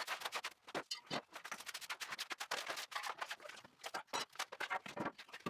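Faint, irregular clicking and light clatter of small objects and debris being handled and picked up.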